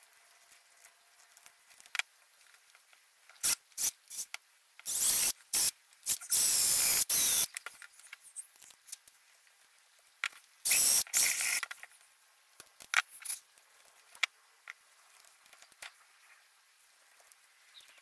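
Stanley knife blade shaving and whittling a wooden lure blank: scattered light scrapes and clicks, with longer, louder scraping cuts a few seconds in and again around eleven seconds in.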